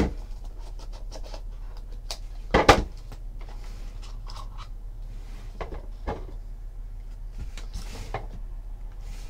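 Small cardboard trading-card box being handled and opened: slid out of its sleeve and the lid lifted, giving a few light knocks and rubs, the loudest about two and a half seconds in. A steady low hum runs underneath.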